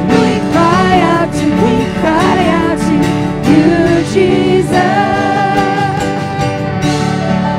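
A live church worship band playing a slow song, with singers over the band and regular drum and cymbal hits. In the second half the voice holds one long note while the music starts to fade.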